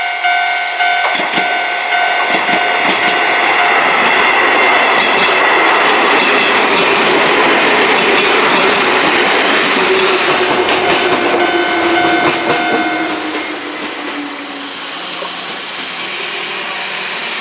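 Japanese level-crossing alarm bell ringing in a steady repeated rhythm while an electric train of the Izuhakone Railway Sunzu Line passes through the crossing, its wheels clacking over the rail joints. The bell stops about thirteen seconds in, and the train fades off with a falling whine.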